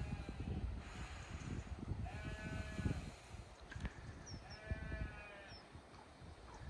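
Sheep bleating: a faint bleat at the start, then two clear drawn-out bleats about two and about four and a half seconds in, over a low rumble.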